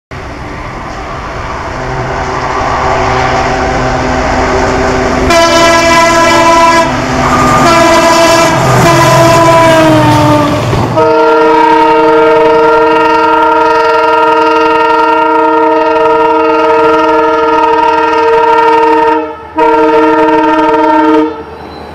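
Passing train with a diesel locomotive sounding its multi-tone air horn. A rumble builds over the first few seconds, then come short horn chords, one dropping in pitch as the locomotive goes by. After that comes a long steady horn blast, a brief break near the end, and one more blast.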